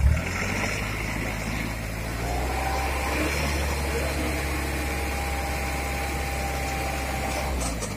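Hino Dutro dump truck's diesel engine held at raised revs to drive the hydraulic hoist as the tipper body lifts, with a thin steady whine over the engine note. The engine note comes up sharply at the start and drops away just before the end.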